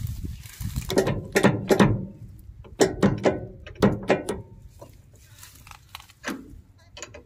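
Socket ratchet wrench clicking in short, irregular runs as a nut is turned on the machine's wheel linkage; the clicks thin out in the last couple of seconds.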